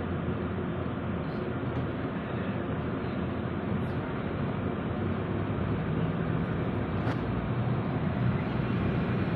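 Engine and road noise inside the cab of a moving vehicle: a steady hum and rumble that gets a little louder in the last few seconds.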